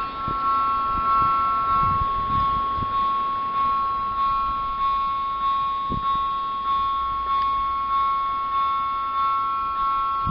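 Electronic warning bell of a level crossing ringing: a steady two-tone electronic ding repeating a little under twice a second, with a lower tone joining about seven seconds in. A single thump sounds about six seconds in.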